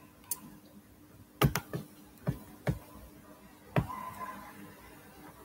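Hands tapping and clicking at a computer close to the microphone: about seven sharp clicks and knocks at irregular spacing, the loudest about one and a half seconds in.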